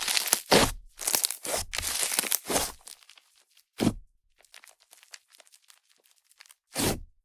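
Fluffy clay-and-butter slime made with Yoda clay being squished by hand, with air pockets crackling and sizzling. The squishing is loud for the first three seconds, then trails off into faint crackles broken by two short thuds.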